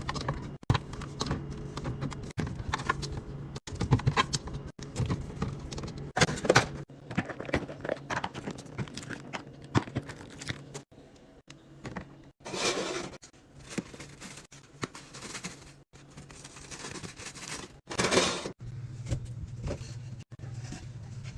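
Food packages and containers being handled and set down: a stream of clinks, knocks and rustling packaging. Two longer crinkling or rushing noises come about halfway through and near the end, and the sound breaks off abruptly several times.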